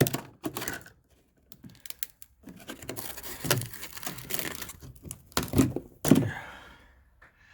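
Hand and tool work on a fibreglass dinghy: irregular clicks and scraping, a sharp knock at the start, and two louder knocks near the end.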